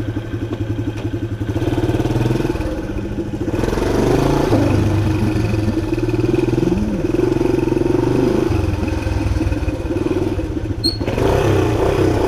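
1976 Honda XL175's single-cylinder four-stroke engine running as the bike is ridden, getting louder about three and a half seconds in and then rising and falling in pitch with the throttle.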